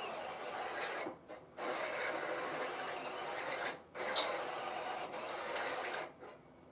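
A sanding tube spun by a power tool, rubbing and rasping against a workpiece at low speed. It breaks off briefly twice and stops about six seconds in.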